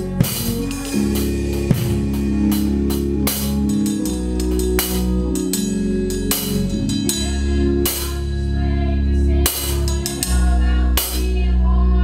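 Live band music: a drum kit played with frequent snare hits and cymbal crashes over sustained low chords and a strong bass line.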